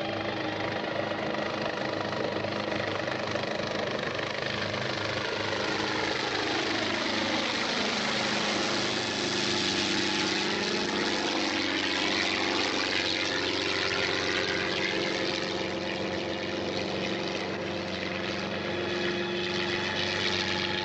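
Steady engine drone, as of a passing vehicle or aircraft, with a whooshing tone that sweeps down and back up over several seconds in the middle.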